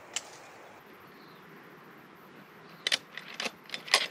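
Small sharp mechanical clicks and knocks from a scoped hunting rifle being handled and readied to fire: one click near the start, then a quick cluster of them from about three seconds in.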